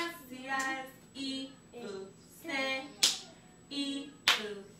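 A woman and young girls singing a children's good-morning song in short phrases, with two sharp hand claps, about three seconds in and again a second later.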